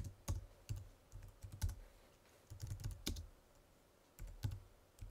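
Typing on a computer keyboard: irregular key clicks in short quick runs, with pauses between.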